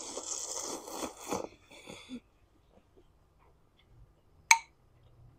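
A person slurping rice vermicelli noodles for about a second and a half, followed by a few faint chewing sounds, then one sharp click about four and a half seconds in.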